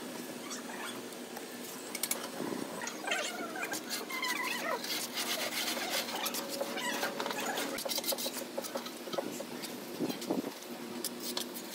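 Steel trowel and profile template scraping and scratching along wet cement mortar while a pillar's cornice is shaped, in many short strokes with a few short squeaks, over a steady low hum.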